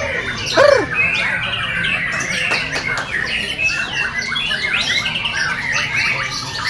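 Murai bird singing a rapid, varied string of chirps, whistles and squawks, with a loud arching squawk about half a second in.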